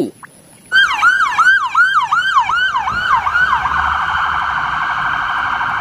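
Police car siren starting just under a second in with a repeated yelping wail, about two or three sweeps a second. A little past halfway it switches to a much faster warble and holds there.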